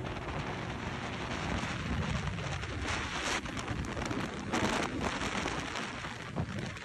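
Wind rushing over the microphone with road noise at highway speed: a steady loud hiss, with two stronger gusts about three seconds in and again near five seconds, over a low rumble.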